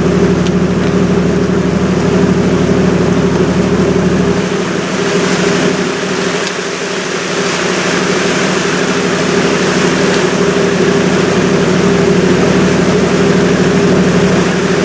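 A river cruise ship's engine droning steadily under a constant hiss. The deepest rumble drops away about four seconds in.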